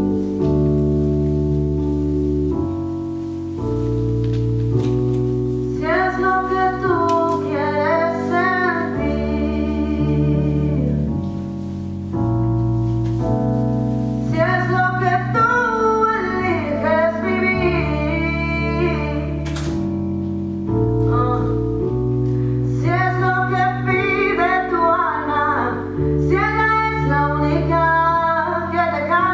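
A song with long held keyboard chords that change every second or two. A singing voice comes in about six seconds in, in three phrases with a wavering pitch.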